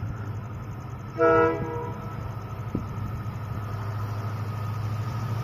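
Approaching WDP-4 diesel locomotive giving one short horn blast about a second in, over the steady low drone of its engine, which grows louder as the train nears.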